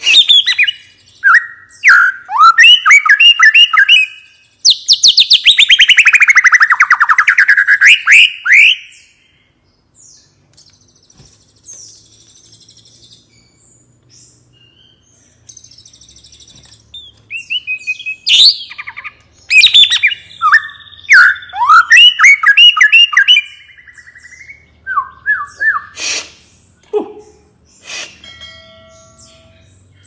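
White-rumped shama (murai batu) singing a loud, open song of clear whistles and quick notes in phrases, including a long fast trill that sweeps down and back up about five seconds in. It pauses for several seconds midway, then sings again.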